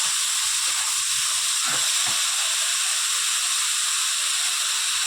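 Indian jujubes (kul) frying in hot mustard oil in a kadai: a steady, even sizzle, with a couple of faint knocks about two seconds in.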